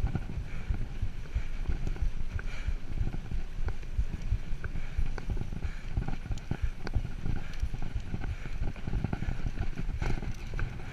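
Mountain bike rolling over a dirt trail: tyres crunching on the packed dirt and gravel, with a continuous low rumble and irregular knocks and rattles from the bike bouncing over bumps.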